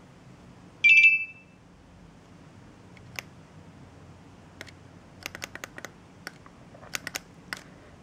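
A short, high electronic beep about a second in, then scattered small clicks as the pairing button on an RF 433 MHz smart switch is pressed and its plastic case is handled.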